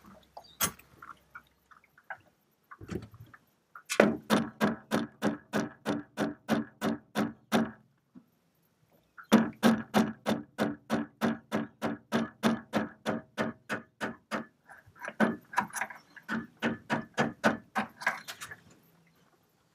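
Rapid, even hammer blows on a steel rod used as a drift, about four or five a second with a ringing metal tone, in three runs separated by short pauses. The blows are driving a stuck Teleflex/SeaStar steering cable rod out through the outboard's pivot tube.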